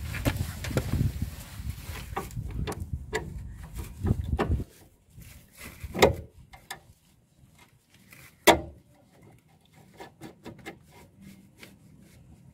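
Metal clicks and knocks from a new anti-roll bar link being fitted to the lower control arm by hand, with two louder knocks about six and eight and a half seconds in. A low rumble runs for the first four or five seconds.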